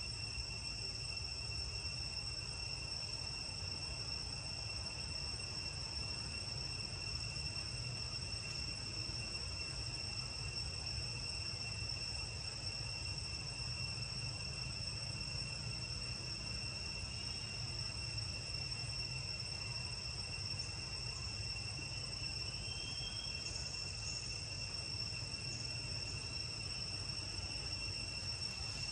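Insects droning in the forest: a continuous shrill high tone that never breaks, over a low background rumble.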